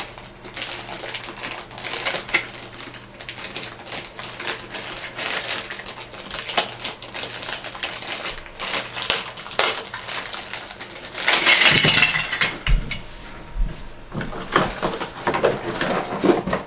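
Crinkling plastic packaging and the clicking and rattling of plastic toy parts as a boxed toy set is unpacked by hand, with a louder burst of crinkling about eleven seconds in and a few dull thumps after it.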